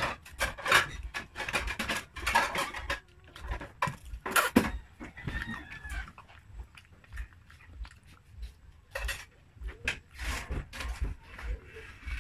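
Chewing and slurping of pancit canton noodles, with wet mouth smacks and clicks coming in irregular bunches.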